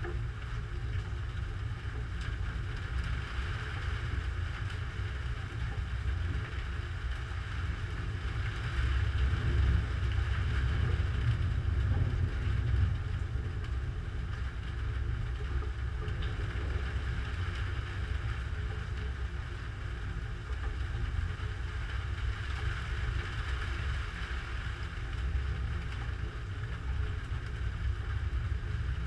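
Storm noise: a steady low rumble with a hiss over it, picked up by a GoPro's microphone. It swells louder for a few seconds near the middle.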